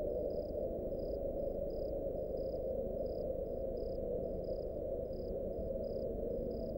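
Cricket chirping in a regular series of short high chirps, about three a second, over a low steady rumble, as a night-time ambience.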